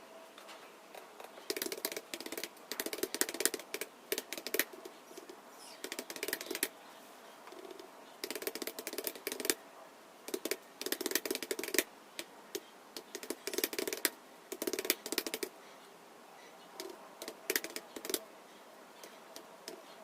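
Computer keyboard being typed on: fast runs of key clicks in bursts of a second or three, with short pauses between them.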